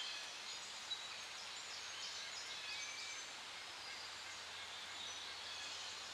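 Faint outdoor nature ambience: a steady soft hiss with many short, high bird chirps scattered throughout, and a small click about a second in.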